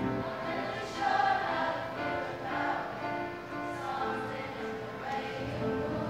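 A children's choir singing in sustained notes, accompanied by an upright piano.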